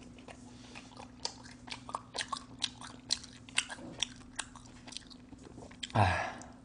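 Pizza being chewed: a run of sharp wet mouth clicks and smacks, several a second. Near the end there is a short, louder voiced sound as another bite of pizza is taken. A faint steady hum runs underneath.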